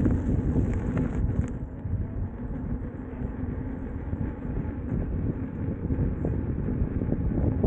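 Rushing noise from riding an Inmotion V12 electric unicycle along a trail: wind buffeting the camera microphone with the rumble of rolling. It eases a little in the middle and picks up again near the end.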